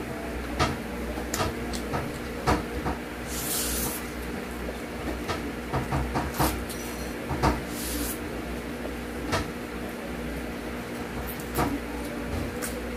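Close-up eating sounds of a person eating pancit canton noodles: chewing with many sharp wet mouth clicks, and a few short hissy slurps of noodles. A steady low hum runs underneath.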